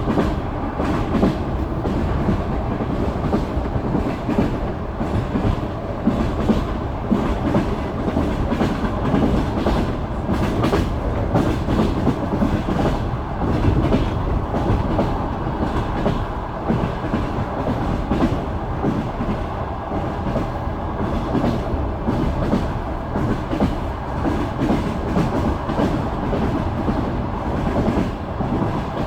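Express passenger train heard from inside the carriage: the wheels' clickety-clack over the rail joints on top of a steady running rumble.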